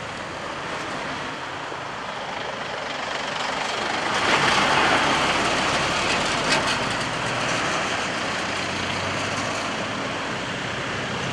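Steady road traffic noise that swells about four seconds in, as a vehicle passes, then eases off.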